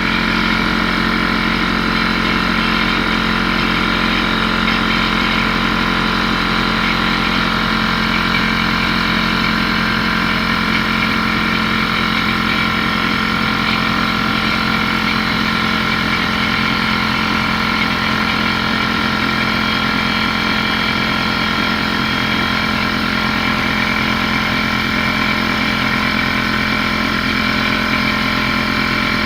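Porter-Cable pancake air compressor's motor and pump running steadily, pumping up the tank.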